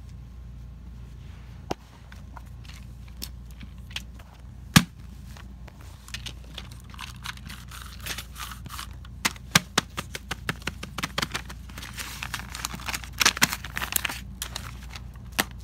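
Plastic fidget toys being handled: scattered sharp clicks with one louder knock about five seconds in, then a dense run of clicking and rattling with some rustling in the second half.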